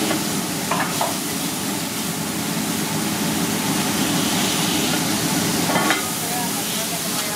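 Beef grease sizzling steadily on a hot flat-top griddle, while a steel burger smasher and metal scraper scrape across the griddle surface in a few short strokes, about a second in and again near six seconds.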